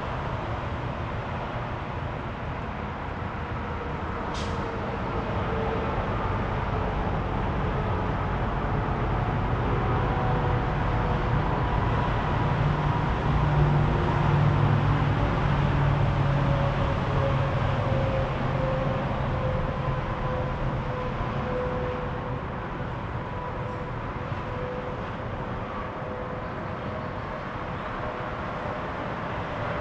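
Steady road traffic. A louder vehicle's engine hum swells and fades around the middle.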